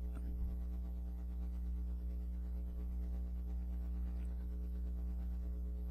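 Steady low electrical hum with a stack of even overtones and faint hiss, unchanging throughout.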